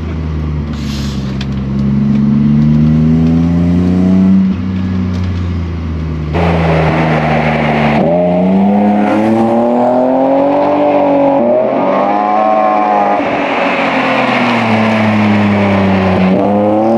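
BMW E30's swapped-in M52B28 2.8-litre straight-six with a custom exhaust, driven hard: the revs climb and drop several times as the car accelerates and shifts, with an abrupt change in the sound about six and eight seconds in.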